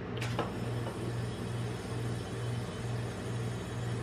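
A metal drink can set down on the steel cold plate of a rolled ice cream machine, with a brief clink just after the start. Under it runs a steady low hum that pulses about twice a second.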